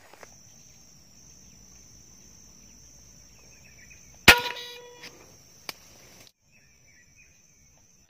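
A single air rifle shot at a perched green pigeon about four seconds in: one sharp crack with a brief ringing tail. Before it there is a steady high-pitched insect drone.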